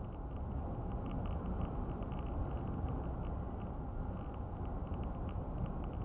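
Steady road and tyre noise heard inside a car cruising at about 50 mph on a highway, with faint, irregular light ticks over it.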